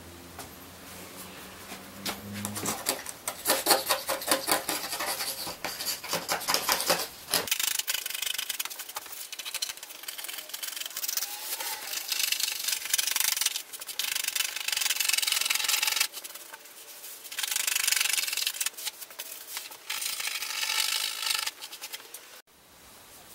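Razor blade scraping excess epoxy off the fibreglass of an EPS surfboard repair, shaving down the high bumps. It comes in repeated quick strokes, in bursts of a few seconds.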